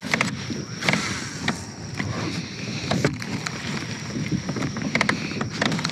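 Small clicks and knocks of a baitcasting rod and reel being handled aboard a plastic kayak, over a steady hiss of wind and water, with a faint high steady tone.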